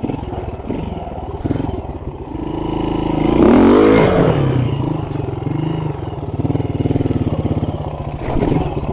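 Honda RTL trials bike's four-stroke single-cylinder engine pulling at low revs, with one sharp rev about three and a half seconds in that rises and falls back to a steady low beat.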